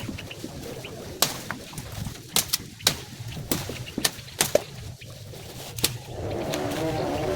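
A string of sharp, irregular clicks and snaps, then from about six seconds in a dove cooing in low, repeated rounded notes.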